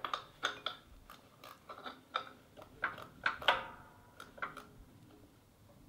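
A 9/16 wrench working the pulley bolt on a small engine's shaft: a string of short, irregular metallic clicks, a few ringing briefly, stopping about four and a half seconds in.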